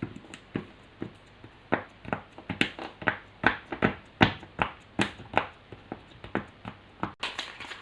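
Hands handling a small toy and its plastic packaging: irregular light clicks, taps and crinkles, a few a second.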